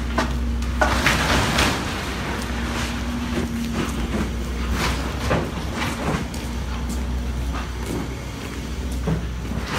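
A steady engine hum over a deep rumble, with footsteps on wet pavement at a walking pace.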